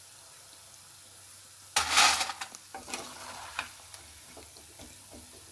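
Hot oil sizzling faintly in a kadai as a batch of fried butter murukku is lifted out on a ladle. About two seconds in, a sudden louder burst of sizzling and scraping from the ladle works in the oil, which trails off in scattered clicks and crackles.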